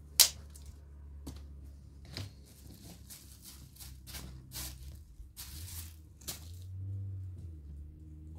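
Dry twigs snapping as they are broken by hand: one sharp crack just after the start is the loudest, followed by a run of smaller snaps and rustling as the sticks are handled and stacked.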